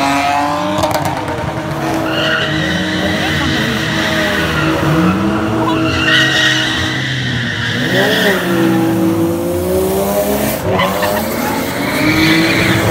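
Cars drifting on asphalt: engines revving up and down hard while tyres squeal in long stretches.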